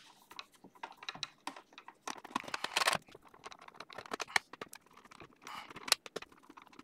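Screwdriver turning out the bottom-plate screws of an Intel NUC mini PC: a run of small irregular clicks and scraping ticks, with denser scratchy stretches a couple of seconds in and again near the end.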